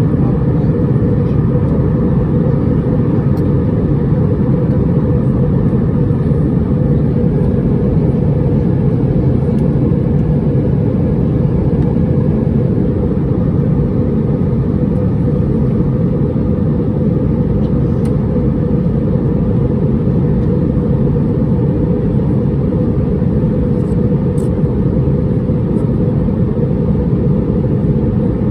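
Steady low engine noise of an Airbus A320-231 airliner, heard from a passenger seat inside the cabin.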